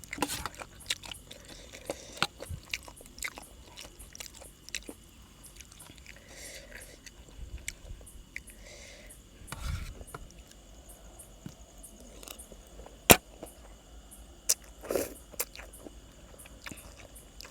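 Close-up eating: chewing and biting on food, with many sharp clicks and crunches, one loud click about 13 seconds in. A faint steady high trill of field crickets runs underneath.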